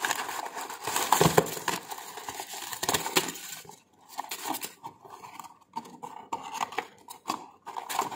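Toy packaging and tissue paper rustling and crinkling as blind bags are pulled out of the wrapping. The crackling is dense for the first three seconds or so, then turns into scattered separate crinkles.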